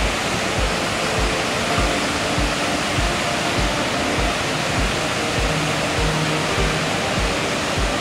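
Steady rushing roar of a waterfall in full flow, mixed with background music that has a steady low beat, about one thump every 0.6 seconds, and a few held tones.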